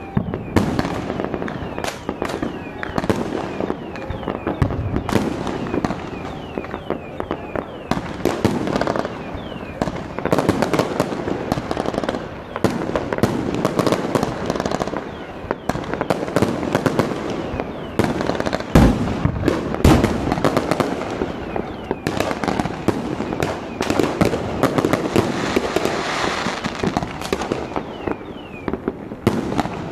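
A dense, unbroken barrage of fireworks and firecrackers: rapid cracks and bangs going off continuously, with two heavier booms a little past the middle and a few short falling whistles.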